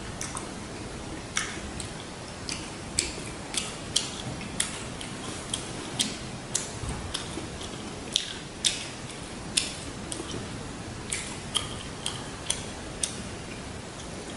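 Close-miked chewing of a lettuce-wrapped bite of pork and shrimp: a run of sharp, irregular wet clicks and crunches, about one or two a second.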